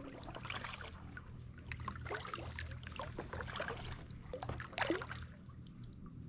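Kayak paddle strokes through calm water: irregular small splashes and drips from the blades, the clearest about five seconds in.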